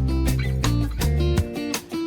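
Background music: guitar with a bass line and a steady drum beat.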